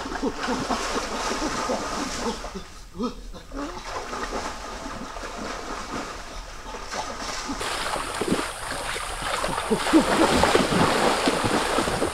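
Water splashing and sloshing, growing louder in the second half, with short animal calls scattered through it.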